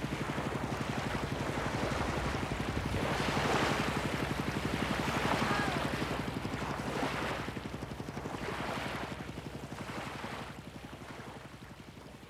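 Small motor launch's engine running with a steady, rapid throb over the wash and splash of choppy water; the sound fades away near the end.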